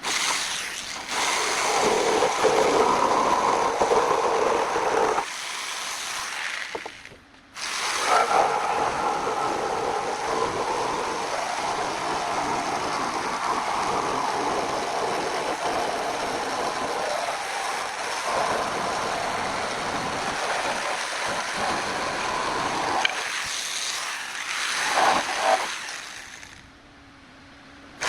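Small jigsaw cutting through a thick hardwood slab, a steady motor-and-blade buzz. It stops briefly about seven seconds in, runs again, then winds down near the end.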